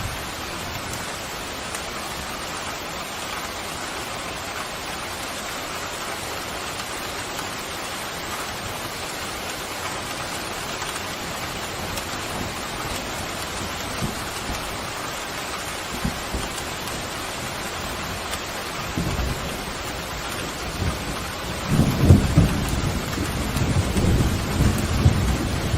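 Steady heavy rain hissing, with thunder rolling in near the end: a faint low rumble that swells into a loud, deep rumble for the last few seconds.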